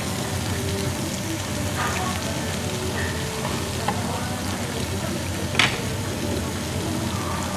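Pork belly and rice cakes sizzling steadily on a Korean barbecue grill pan, with a few light clicks of utensils and one sharp clink a little past the middle.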